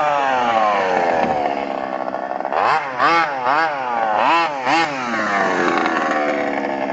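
HPI Baja 5SC radio-controlled truck's small two-stroke gas engine running under throttle: the revs drop away over the first couple of seconds, then a run of about five quick throttle blips in the middle, then climb again as it drives on.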